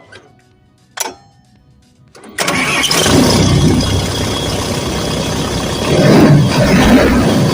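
Two sharp clicks, then about two seconds in the XCMG XE135B excavator's diesel engine starts and runs, rising in level near the end. No belt squeal or tearing sound is heard: the fan belt and air-conditioner belt have just been tightened to cure it.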